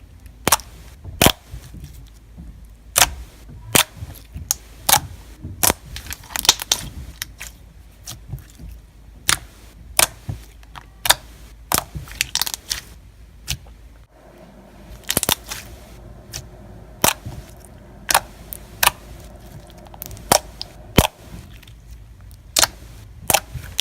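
Clear slime being stretched and squeezed by hand, giving off sharp clicking pops at irregular intervals, about one or two a second.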